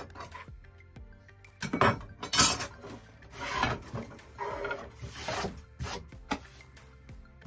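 A series of short rubbing, scraping strokes by hand against a painted wall panel and countertop edge, the loudest about two seconds in, over quiet background music.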